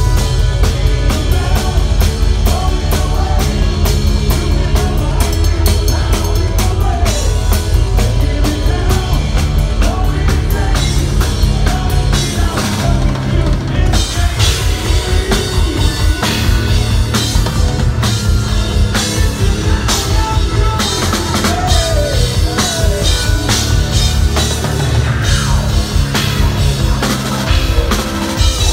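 Live progressive metal band playing loud: a drum kit with dense, driving hits and bass drum under a double-neck electric guitar and organ-style keyboards.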